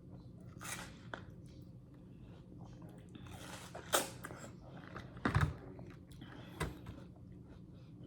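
Close-up mouth sounds of someone biting and chewing juicy watermelon: wet smacks, slurps and crunches come and go, with a louder cluster about four and five seconds in.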